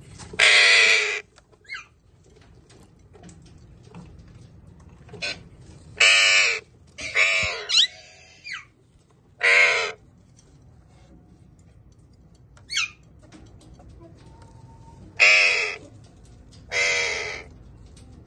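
Alexandrine parakeets squawking in a nest box: about seven loud, harsh screeches of under a second each, with a few short thinner calls between them.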